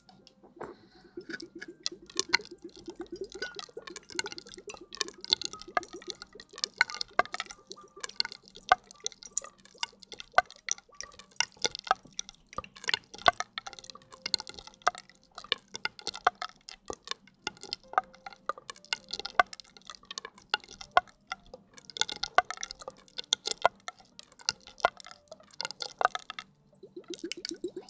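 Close-miked ASMR hair-washing sounds: dense, irregular wet clicks and crackles, like lathered hair being worked, broken by a short pause near the end.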